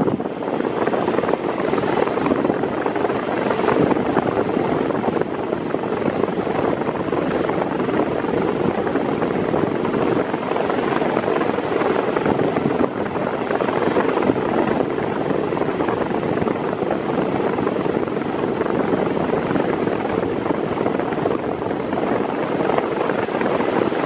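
Six-blade Mondial 40 cm 140 W floor fan running steadily at medium speed: an even rush of air from the blades.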